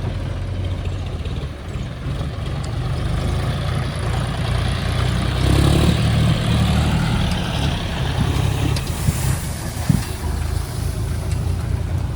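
Heavy diesel engine of digging and loading machinery running steadily, rising in load about halfway through, with a sharp knock near the end.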